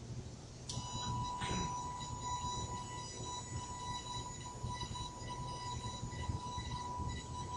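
The electric motor of a rotary inverted (Furuta) pendulum switches on about a second in and runs with a steady high whine while the controller swings the pendulum rod up and holds it.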